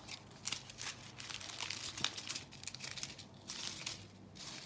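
Small plastic bags of diamond painting drills crinkling irregularly as they are picked up and sorted by hand.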